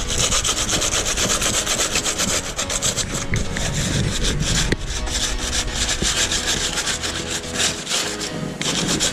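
Hand sanding of a rusted car body panel with coarse 80-grit sandpaper on a sanding block: continuous rasping rub in quick back-and-forth strokes.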